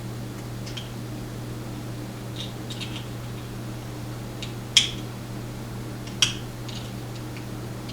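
Small metal clicks and taps of tools working a lock during disassembly, with two sharp clicks about five and six seconds in, over a steady low hum.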